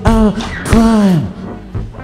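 Live rock band music with a loud pitched note that slides down in pitch twice, once at the start and again about a second in.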